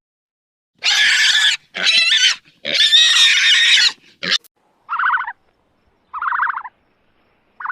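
Pig squealing: three loud, shrill squeals in the first four seconds, then three shorter, more tonal calls about a second apart.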